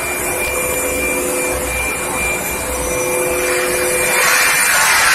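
An induction surface-quenching machine for oil pipe running with a steady electrical hum and whine over a noisy hiss. The hiss grows louder about three and a half seconds in.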